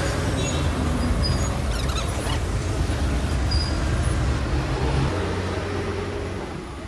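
Road traffic: vehicle engines running with a steady low rumble, easing off a little near the end.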